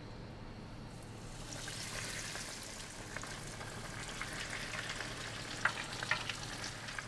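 Panko-breaded bacon rashers and scallops sizzling in 180 °C oil in a countertop deep fryer. The frying builds about a second in to a steady crackling hiss, with a few sharper clicks near the end.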